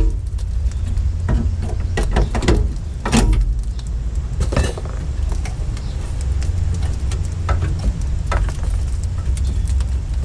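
Scattered metallic clanks and knocks as a rusted truck cab corner panel is worked loose by hand at its last spot welds, over a steady low rumble. The knocks bunch up in the first three seconds, then come singly a few seconds apart.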